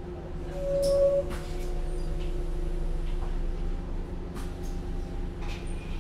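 Natural-gas (CNG) engine of a Heuliez GX 317 GNV city bus running steadily with a low hum. A short high tone sounds about half a second in, and light clicks and knocks come and go over it.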